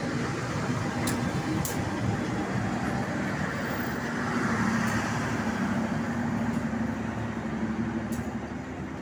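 Passenger train passing close on the adjacent track: a steady rumble of coach wheels rolling on the rails, swelling about halfway through, with a few sharp clicks.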